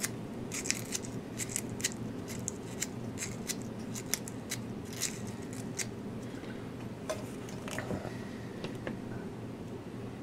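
Light metallic clicks and scratches of a guitar-amp input jack being handled, many in quick succession for the first six seconds, then a few scattered ones.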